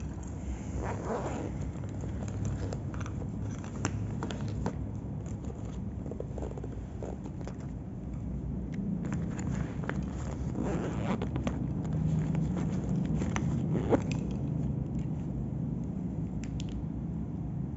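Equipment being handled close to the microphone, with scattered clicks, scrapes and rustles over a low steady rumble. One sharper click comes about three quarters of the way through.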